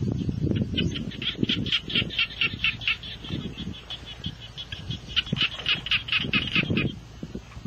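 A bird calls twice in bouts of rapid, repeated high squawks, about five a second, over low rustling and scraping of a gloved hand working in dry leaves and mud.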